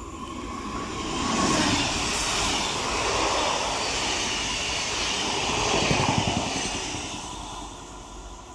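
Double-deck electric TER regional train passing through the station without stopping: a rush of wheel and rail noise that swells, holds, and fades as it moves away. A rapid clatter of wheels on rail comes about six seconds in as the last cars go by.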